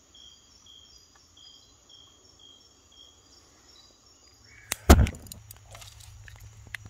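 Pre-dawn chorus of calling tree frogs and insects: short high-pitched calls repeating about twice a second over a steady high drone. About four and a half seconds in, a low steady hum starts and two sharp knocks sound, the second one loud.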